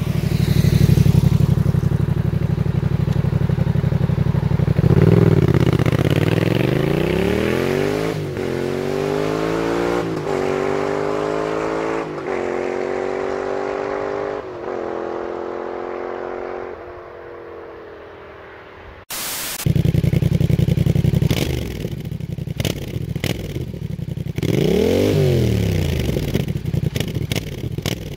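Yamaha MT-07 parallel-twin engine through a Shark Street GP aftermarket exhaust, accelerating hard up through the gears: the revs climb and drop at each of about five shifts, then die away. After a sudden change, it runs loud at low revs with short throttle blips, the exhaust crackling and popping.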